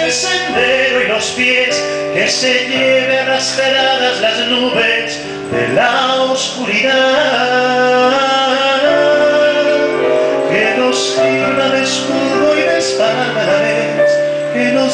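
A man singing a slow ballad over keyboard accompaniment of long held chords.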